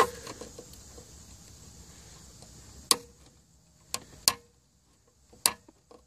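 Five sharp, separate plastic clicks spread irregularly over a few seconds, as hard plastic dashboard parts and wiring connectors behind a car's climate-control panel are worked with a plastic pry tool.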